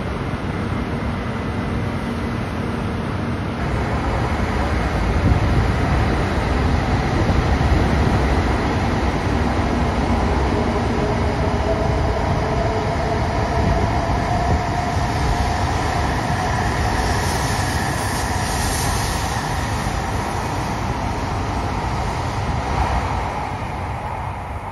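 ALFA-X (E956) experimental Shinkansen pulling out of the platform: a steady rumble of the train rolling past, with a whine that rises in pitch as it gathers speed. It fades near the end as the train draws away.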